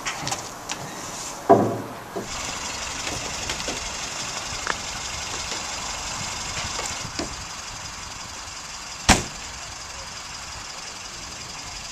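Car doors being shut on an estate car: two loud thumps, about a second and a half in and about nine seconds in, with lighter knocks and clunks between them, over steady outdoor background noise.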